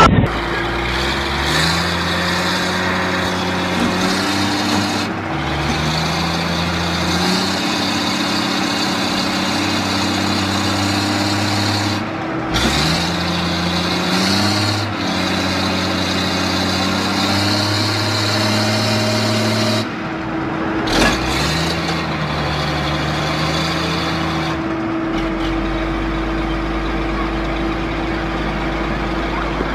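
Heavy diesel engines of a garbage truck and the backhoe loader and excavator pulling it out of a hole in the road, revving under load. The engine note climbs and then holds, four times over, with brief drops in between.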